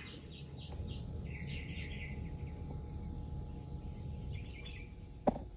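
Rural outdoor ambience: birds chirping in short repeated calls, over a steady high-pitched insect drone and a low rumble. A single sharp click sounds near the end.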